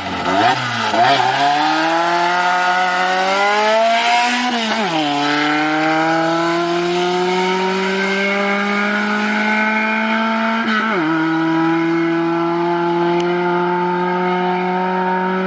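Car engine pulling hard under acceleration, its pitch climbing and then dropping sharply about five seconds in and again about eleven seconds in as it shifts up through the gears, then rising slowly in a high gear.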